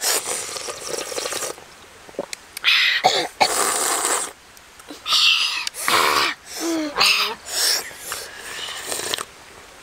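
Several long, loud slurps of broth sipped from a coconut-shell bowl, with short vocal sounds of relish between them.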